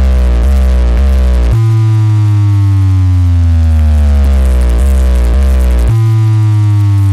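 DJ sound-check remix music with a heavy humming bass: deep synth bass notes that slide down in pitch, struck in quick half-second hits near the start and near the end, with long held notes between.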